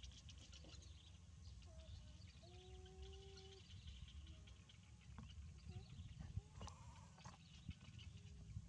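Quiet outdoor background with a low rumble and faint high chirps. A single faint, steady animal call lasting about a second comes about two and a half seconds in, and a sharp click sounds later on.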